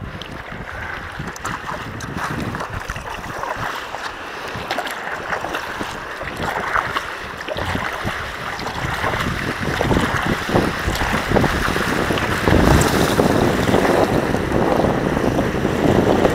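Water splashing and rushing along the bow of a Bark Excursion stand-up paddleboard as it is paddled forward, with wind buffeting the microphone. The splashing grows louder about ten seconds in.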